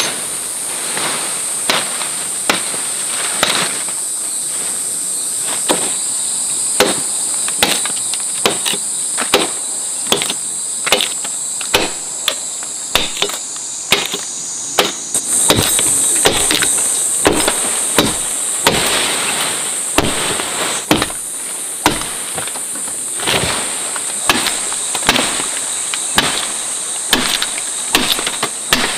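Repeated chopping strikes, irregular at about one or two a second, over a steady high-pitched insect drone.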